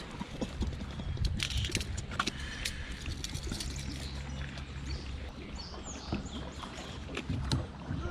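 Irregular knocks and clicks of gear being handled and bumped against a kayak, over a steady low rumble.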